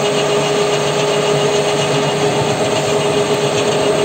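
WM210V benchtop lathe running steadily with a constant whine, while a cutter scrapes along a steel axle shaft, cutting splines pass by pass.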